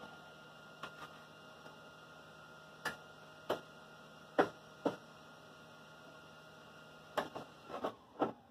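Scattered sharp metal clicks and knocks as clamps along a car's quarter-panel seam are handled and set, over a low steady electrical hum that stops near the end.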